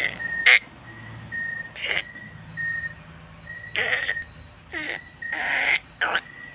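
A domestic cat making several short growling, yowling cries in quick succession, some bending in pitch, like a cat worked up in rough play. Behind them run steady high-pitched whines and chirps like crickets.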